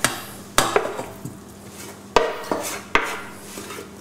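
Wooden spoon scraping roasted butternut squash off a roasting tray into a stainless steel pot, with four sharp knocks of spoon and tray against the pot and softer scrapes between them.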